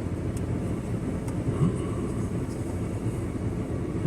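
A steady low rumble, with a few faint, sharp clicks from a Craftsman multi-tool being handled as its parts are worked open.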